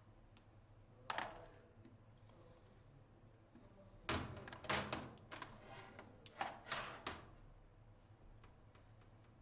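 A few scattered knocks and clatters, as of hard objects handled on a workbench. There is a single sharp knock about a second in, then a cluster of sharper knocks between about four and seven seconds in.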